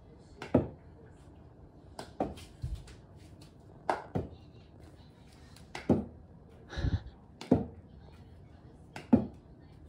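Plastic cat flap in a door clacking as it is knocked and pushed from either side: short sharp knocks every second or two, some in quick pairs.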